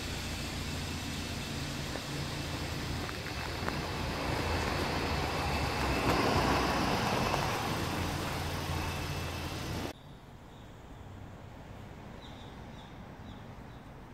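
A motor vehicle running close by: a steady low engine hum with road noise that swells about six seconds in, then cuts off abruptly around ten seconds, leaving quieter outdoor ambience with a few faint high chirps.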